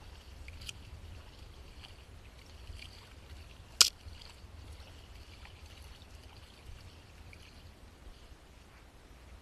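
Kayak paddling: the paddle dipping and water trickling and dripping, with one sharp knock a little under four seconds in.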